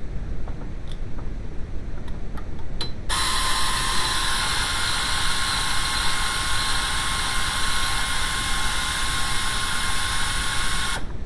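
A high-pitched power tool running steadily for about eight seconds: a loud hiss with a whine that starts suddenly about three seconds in and cuts off suddenly near the end, after a few light clicks.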